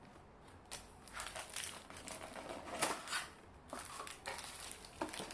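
Rustling and irregular light knocks from a boxed sliding-door handle and lock set being handled in its white packaging box.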